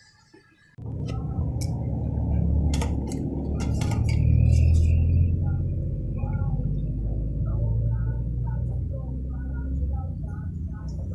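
A loud low rumble starting about a second in, with a few sharp metallic clinks from a steel pliers-type tool knocking against a steel mug in the first few seconds.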